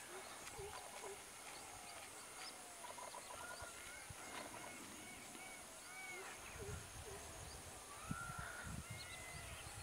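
Many birds chirping and calling in short rising-and-falling notes over a steady high-pitched drone, with low thumps and rumbles in the second half.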